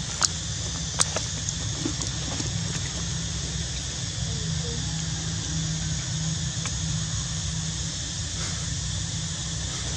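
Steady outdoor background noise: an even hiss with a low hum beneath it, and two sharp clicks in the first second.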